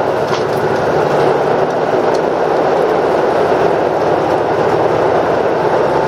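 Steady running noise heard inside the cabin of a JR KiHa 85 series diesel express train at speed: an even rumble of wheels on rail and the train's running gear.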